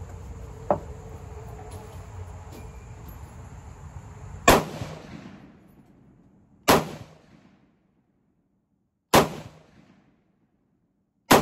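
Four single gunshots from an AR-15 pistol, spaced about two and a half seconds apart, each with a short echoing tail.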